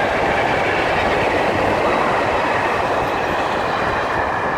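A train passing close by: a loud, steady rumble of railway wagons running on the rails.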